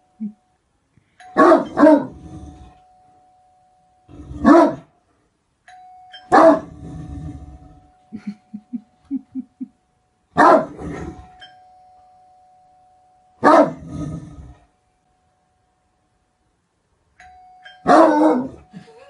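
Great Dane barking: deep, loud single and paired barks every few seconds. A faint steady tone hangs between the barks, and after the third bark comes a quick run of short low sounds.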